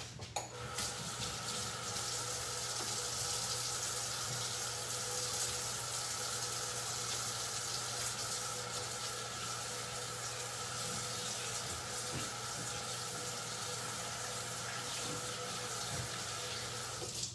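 Kitchen sink faucet running steadily while hands are washed under it, shut off just before the end.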